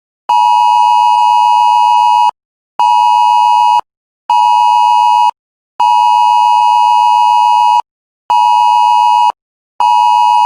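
Emergency Alert System warning tone: a loud, steady electronic beep that pulses in a repeating pattern of one two-second tone followed by two one-second tones, with short gaps between.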